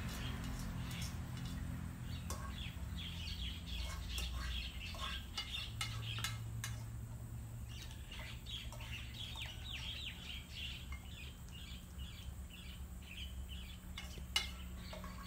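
Small birds chirping continuously, with scattered clicks and clinks from the feeding bowls as the dogs eat and the spoon touches the steel bowl. A sharper clink comes near the end.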